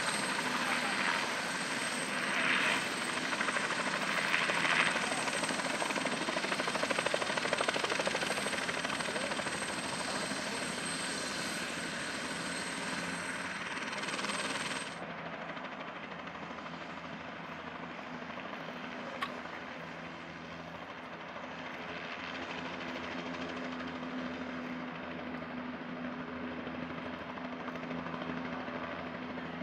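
Bell 206L-1 LongRanger II helicopter, its Allison 250-C28 turboshaft and rotor running loud and steady while it hovers low over the ground, with a thin high whine. About halfway through the sound drops suddenly and goes on quieter and steady as the helicopter sits on the grass with its rotor turning.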